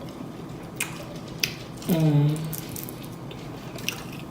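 Close-up mouth sounds of eating: wet smacking and chewing with a few sharp clicks. About two seconds in comes a short vocal sound from the eater, falling fast in pitch and then held low for a moment.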